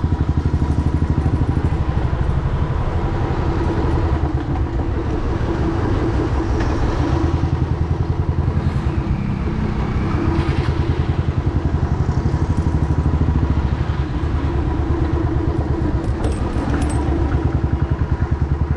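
Royal Enfield Classic 350's single-cylinder engine running under way, a steady thumping exhaust beat at an even, rapid pace.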